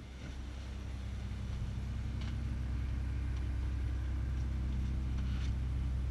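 Cessna 172's piston engine idling, heard from inside the cabin as a steady low drone that grows a little louder over the first couple of seconds and then holds steady, with a few faint clicks.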